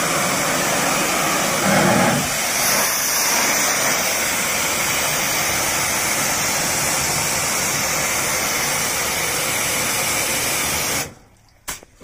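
Kärcher pressure washer's high-pressure water jet spraying onto a truck wheel and a jeep's front, a loud, steady hiss of spray with the machine's pump running. The spray cuts out suddenly near the end.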